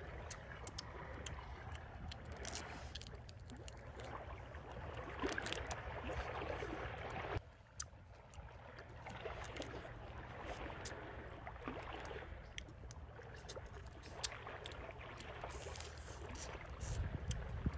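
A person eating cooked lobster meat, chewing with many small, scattered mouth clicks, over a steady low rumble.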